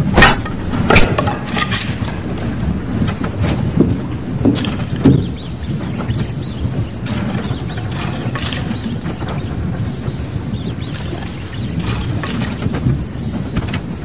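Axe blows chopping into a wooden crate, several heavy chops over the first five seconds, then rats squeaking and scurrying, over a low steady rumble.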